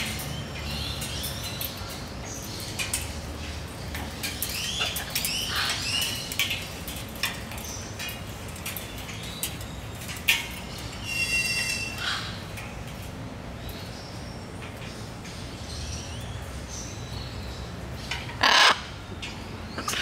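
Birds calling: scattered short chirps and a whistled call, and about eighteen seconds in a loud, harsh squawk from a blue-and-yellow macaw.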